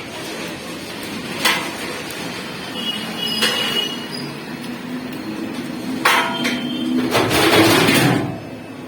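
Road traffic noise with a few sharp knocks and a louder rushing swell about seven seconds in.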